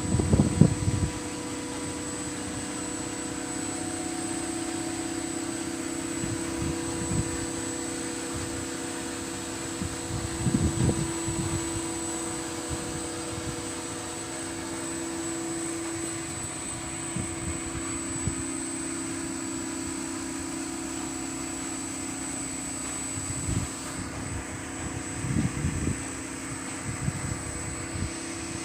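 HVAC plant machinery running with a steady hum made of several held tones and a thin high whine, broken now and then by short low rumbles.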